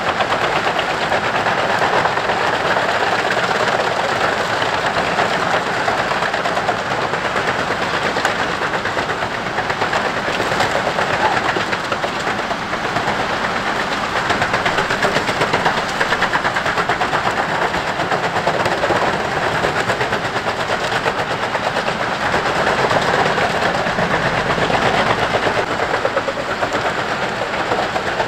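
Jenz HEM 593 Cobra truck-mounted drum chipper working under load, chipping conifer branches and tree tops fed in by its crane. A steady, dense, rapid rattle and crackle of wood being cut runs over the heavy engine.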